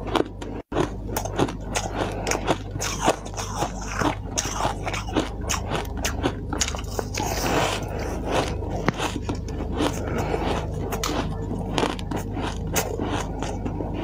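Close-up biting and chewing of soft, snow-like white ice, with crisp crunches coming several times a second.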